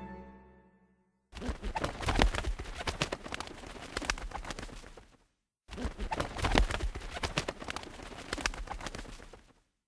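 Rapid, irregular clattering knocks, about four seconds long, played twice with a short silence between.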